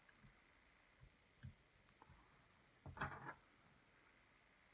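Mostly near silence, broken by a few faint taps and, about three seconds in, a short cluster of clicks: fingers handling the tying thread and monofilament line at a fly-tying vise.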